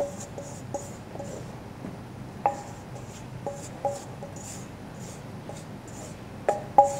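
Flour being tipped and scraped out of a stainless steel bowl into a stainless steel Saladmaster wok: soft swishes of the powder and about ten light metal-on-metal taps, each leaving a short ringing tone, as the bowl and spatula knock against the steel.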